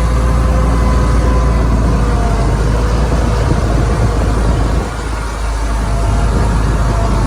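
Komatsu D41P bulldozer's diesel engine running as it works, a deep steady rumble with a faint whine above it; it eases briefly about five seconds in.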